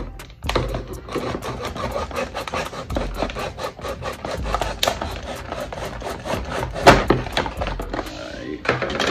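Kitchen knife sawing and scraping at a clear plastic clamshell package in quick rasping strokes, with one louder crack about seven seconds in.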